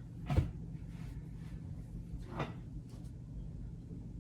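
Two short knocks, a sharper one and then a softer one about two seconds later, as things are handled and set down in a storage cupboard, over a low steady hum.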